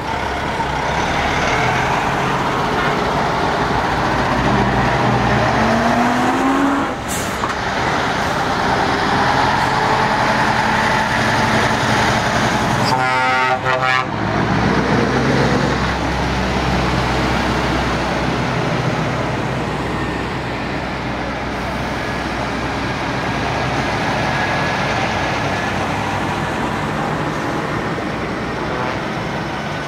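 Heavy diesel trucks driving past one after another, their engines running and revving as they pull away. A short truck horn blast sounds about halfway through.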